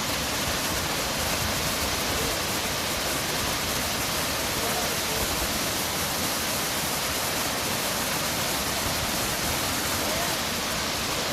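A large waterfall's falling water rushing steadily, a dense, even noise with no let-up.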